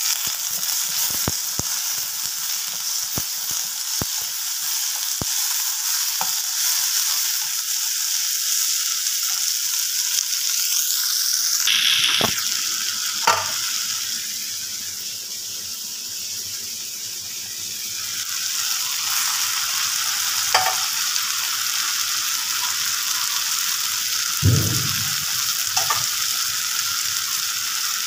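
Shallots and tomatoes sizzling in oil in a metal kadai, a steady hiss, while a wooden spatula stirs and scrapes the pan with scattered clicks. A single dull thump comes about three-quarters of the way through.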